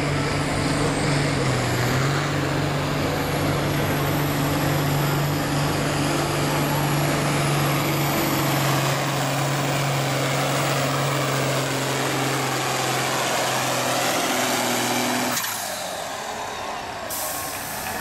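Farmall 806 tractor's diesel engine running at steady high revs under full load while pulling a weight-transfer sled. About fifteen seconds in it is throttled back abruptly as the pull ends.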